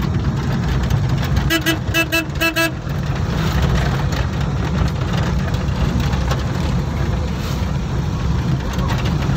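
Steady low engine and road rumble heard inside a moving vehicle's cabin. About one and a half seconds in, a quick run of about six short horn toots.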